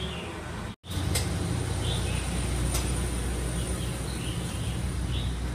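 Outdoor roadside ambience: a steady low rumble of traffic with small birds chirping now and then. The sound drops out for an instant under a second in.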